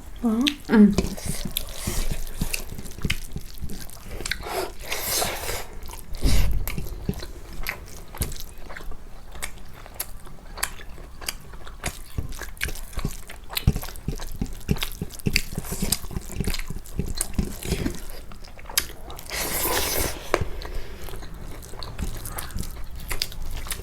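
Close-miked mukbang eating: a person biting and chewing food, with many small wet mouth clicks. There is a dull thump about six seconds in.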